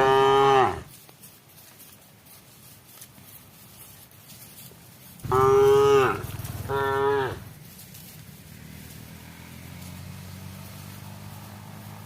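Cattle mooing in three short calls: one right at the start, then two in quick succession about five seconds in.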